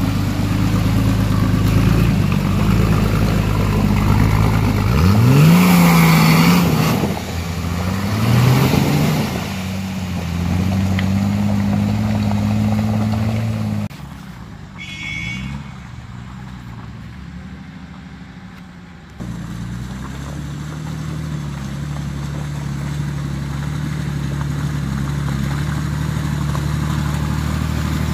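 Off-road 4x4 engine revving hard in deep mud, its pitch surging up and down. After a cut it is faint and distant for a few seconds, then a Nissan Patrol's engine labours steadily, slowly rising in pitch as the truck climbs the muddy track.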